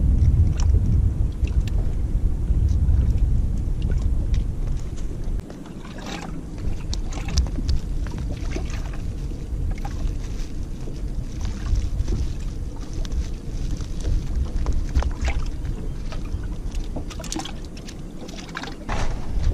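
Wind rumbling on the microphone, easing off about five seconds in, with scattered light clicks and crinkles of a plastic bait bag and hook being handled.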